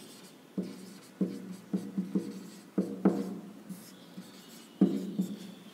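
Handwriting: a run of short writing strokes, roughly two a second, each starting sharply and fading quickly.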